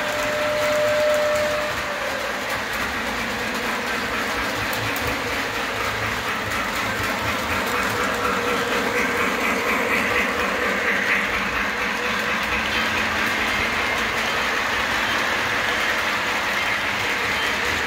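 Model train running on its track: a steady rolling noise of the wheels and motor that runs on without a break. A single steady tone sounds over the first second and a half.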